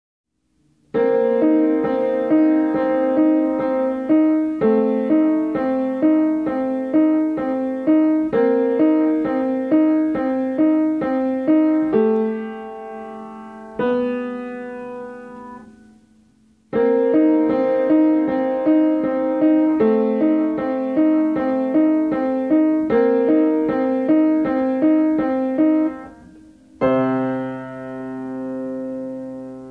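Upright piano played: a simple, evenly repeating figure of about two notes a second. The phrase closes on held chords that die away about halfway through, then the figure is played again and ends on a low chord left ringing near the end.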